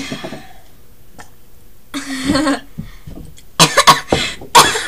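A rough, throaty burp about two seconds in, then a quick run of harsh coughs near the end: a girl choking and coughing during a burping contest.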